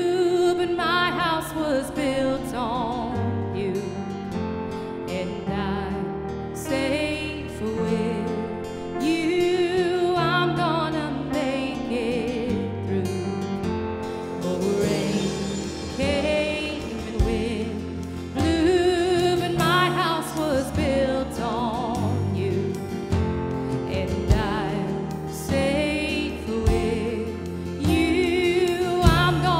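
Live worship band playing a slow song: a woman sings lead over drums and electric and acoustic guitars.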